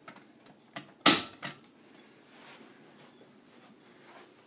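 A manual fire alarm pull station's handle being pulled down: one sharp snap about a second in as it latches, with a couple of softer clicks just before and after.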